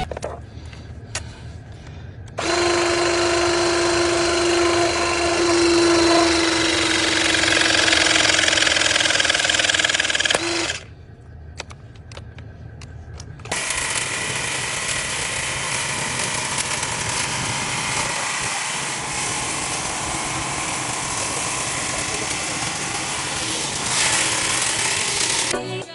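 A hydraulic crimping tool's motor whining steadily, its pitch sinking slightly as it presses a connector onto thick braided copper ground wire. After a short quieter gap with a few clicks, a different machine runs with a steady mechanical noise for about twelve seconds.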